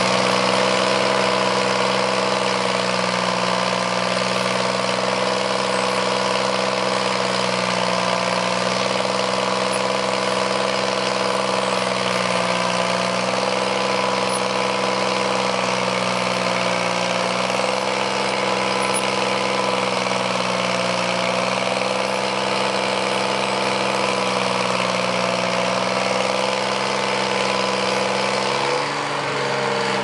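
Engine of heavy pipeline construction machinery running steadily at constant speed, then slowing near the end as its pitch drops.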